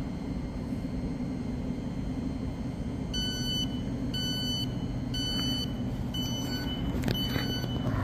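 Door-closing warning beeps of a Thameslink Class 700 train: five evenly spaced high beeps about a second apart, starting about three seconds in, over the standing train's steady low hum. A single sharp knock near the end.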